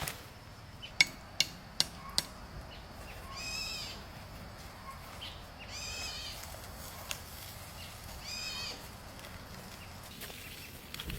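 Four sharp knocks in quick succession, then a high, nasal animal call repeated three times, a couple of seconds apart.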